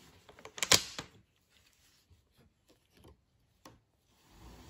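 Wooden knocks and clacks from a rigid heddle loom being worked by hand: one sharp clack about a second in with a few lighter knocks just before it, faint ticks after, and another short knock near the end.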